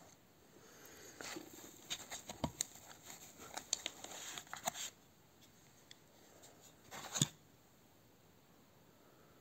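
Handling noise: a quick run of small clicks and rustles for about four seconds, then a short burst of rustling ending in a sharp knock about seven seconds in.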